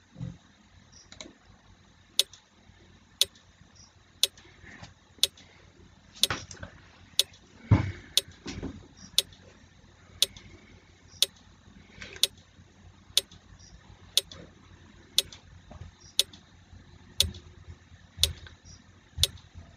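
Countdown-timer sound effect ticking about once a second, marking the time allowed to answer a quiz question. A few duller knocks come in among the ticks, the loudest about eight seconds in.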